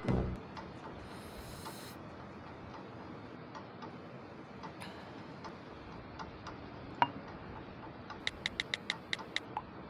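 Quiet room hiss with scattered light clicks, then one sharp click about seven seconds in. A quick run of about eight sharp taps on a smartphone's keyboard follows near the end.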